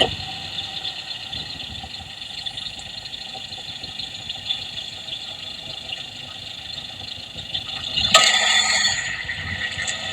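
Idling car engine heard through an electronic stethoscope with its probe on a fuel injector: a steady, fast mechanical ticking, louder and fuller for about a second near the end.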